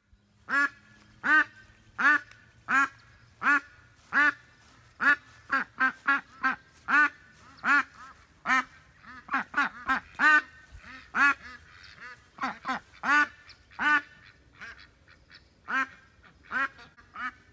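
A female white domestic duck quacking loudly and insistently: a long string of single quacks, a little over one a second at first and bunching closer together in the middle. A lone hen calling nonstop, apart from the rest of her flock.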